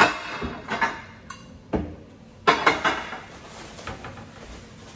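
Dishes and kitchenware being handled and set down while unpacking: a run of clinks and knocks in the first three seconds, then quieter handling.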